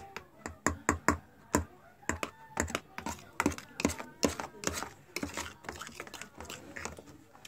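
Homemade glue slime being mixed with added laundry detergent, making quick irregular sticky clicks and pops, about two or three a second.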